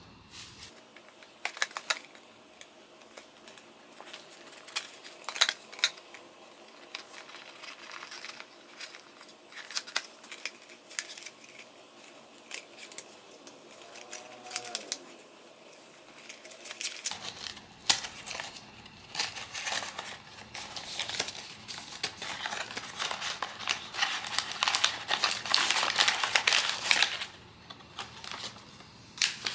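Hands handling and opening a small cardboard blind box: scattered taps and scrapes of cardboard at first. About halfway through comes a longer stretch of rustling and crinkling as the packaging inside is worked open and pulled out.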